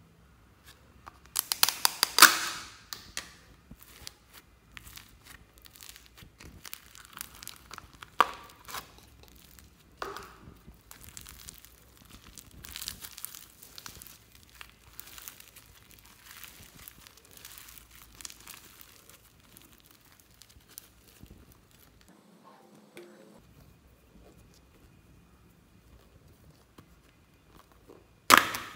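Floam slime, sticky slime packed with tiny foam beads, being handled: crackling, crinkling pops as it is pulled out, stretched and folded. A loud burst of crackles about two seconds in, scattered softer crackles through the middle, and another loud burst near the end.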